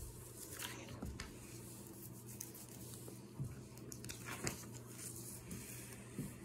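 Quiet room with a steady low hum and a few scattered faint clicks and rustles of small handling noises.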